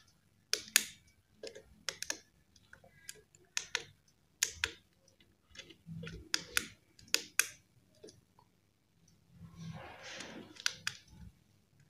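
Irregular sharp clicks and taps of small hard objects being handled, with a short rustle about ten seconds in.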